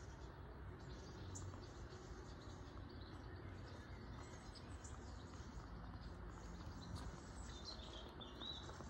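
Faint outdoor ambience with small birds chirping now and then, including a short pair of chirps near the end.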